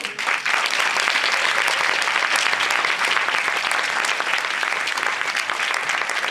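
Audience applauding: dense, sustained clapping from a full house, starting abruptly and holding steady.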